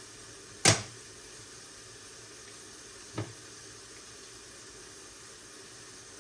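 Two chops on a chopping board as a raw chicken is cut into pieces: a loud, sharp one under a second in and a softer one about three seconds in. A faint steady sizzle runs underneath from onions frying in a pan.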